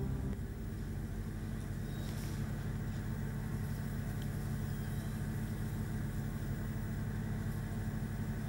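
Car engine and road noise heard from inside the moving car, a steady low hum.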